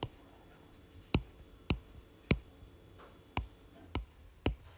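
Apple Pencil tip tapping on an iPad's glass screen while shapes are drawn: about seven sharp, uneven taps.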